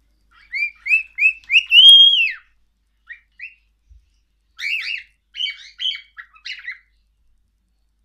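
Cockatiel whistling: a run of short rising whistled notes that climbs into one longer held note about two seconds in, then a few quick chirps and a burst of rapid warbling chatter in the second half.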